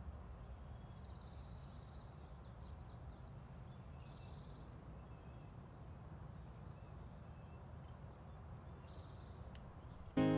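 A bird calling in short, high, rapid trills, four times, over a faint low steady outdoor rumble. Acoustic guitar music starts just at the end.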